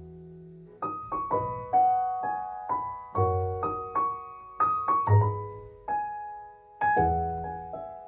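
Background music: a gentle piano melody of single struck notes, each fading after it is played, over low bass notes.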